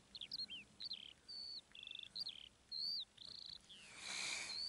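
A small songbird singing: a steady run of short, high, varied chirps and whistles, some given as quick trills. A brief scratchy hiss comes near the end.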